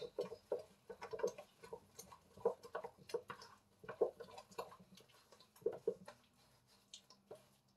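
Wooden spoon stirring thick cake batter in a stainless steel mixing bowl: irregular soft knocks and scrapes of the spoon against the bowl.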